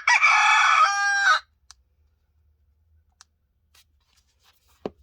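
HTC U23 Pro ringtone of a recorded rooster crow: one crow that ends about a second and a half in. A few faint clicks follow, then a short knock near the end.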